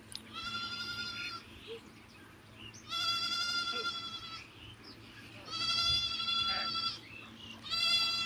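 An animal's high, drawn-out call, repeated four times at fairly regular intervals, each about a second long and held at one steady pitch; the last is cut off at the end.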